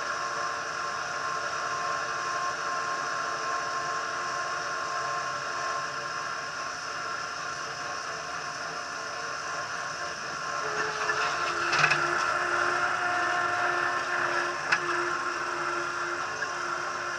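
TCM 706 loader's engine running steadily while the machine drives. Its note shifts about two-thirds of the way through, and there is a sharp clunk about twelve seconds in and a click a few seconds later.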